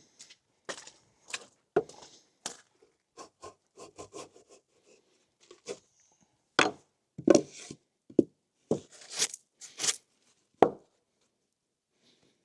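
Irregular sharp wooden knocks and short scrapes, about twenty in all, loudest and densest in the second half, as rough-sawn lumber boards are handled and set in place.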